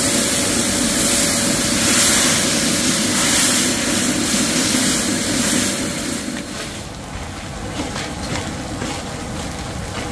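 Steady loud hiss and rumble of a pot cooking over a high-pressure gas burner as red curry paste and coconut cream fry in oil. It eases to a lower level about six seconds in.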